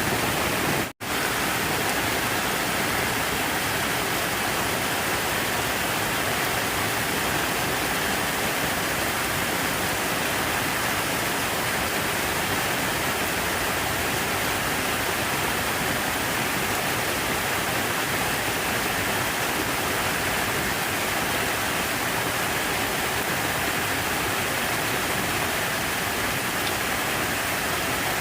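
Water rushing steadily in an even, unbroken hiss, cut off for a split second about a second in.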